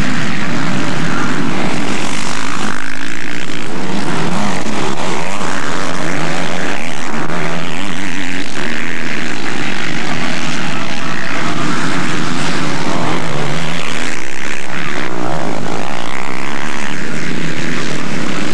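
Several four-stroke motocross bikes racing past, their engines revving up and down with the pitch rising and falling as they accelerate and change gear. Loud and continuous.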